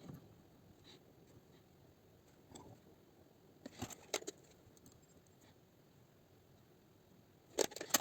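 Faint handling noise: scattered light clicks and clatter of small objects, with a cluster about four seconds in and a louder pair of clicks near the end.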